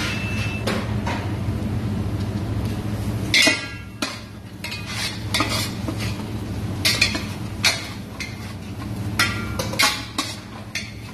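A long metal spoon stirring and scraping in a stainless steel stockpot, with sharp clinks at irregular intervals, as flour is worked into browned vegetables to make a roux. A steady low hum runs underneath.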